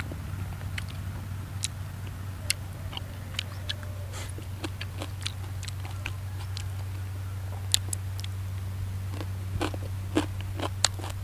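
A person chewing a mouthful of fish salad with crunchy fresh vegetables close to the microphone: irregular crunches and mouth clicks, over a steady low hum.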